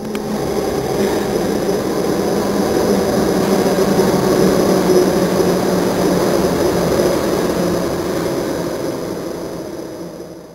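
Subway train running through a station: a steady rumble and hiss with a low hum under it, swelling in at the start and fading away near the end.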